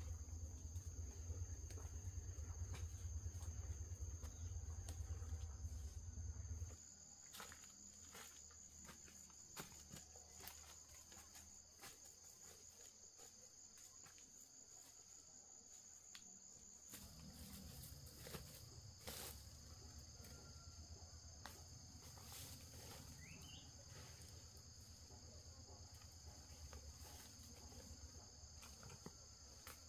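Faint, steady high-pitched trilling of insects in the background, with scattered faint clicks and knocks. A low rumble sits under it for the first seven seconds or so.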